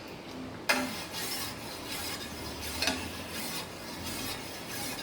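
A spoon stirring and scraping around a pot of simmering liquid, in a run of short scraping strokes about two a second, the first and sharpest a little under a second in.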